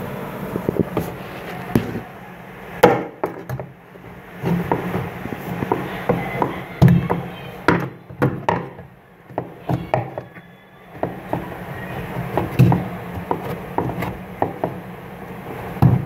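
Irregular knocks, taps and metallic clatter of hand tools and parts being worked on the underside of a washing machine, at its V-belt and gearbox pulley, with a few sharper knocks standing out and a brief lull midway.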